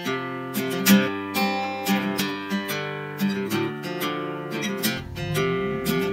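Instrumental theme music led by plucked and strummed guitar, with a steady run of sharp note attacks.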